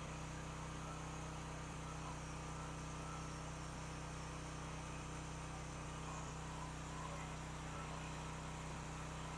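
Steady low hum of a pressure-washing rig's engine running at an even speed.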